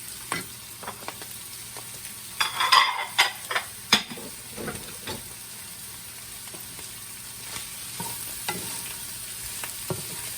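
Creamy chicken and mushroom mixture sizzling in a frying pan while a utensil stirs it, clicking and scraping against the pan. A burst of louder clatter comes about two to four seconds in.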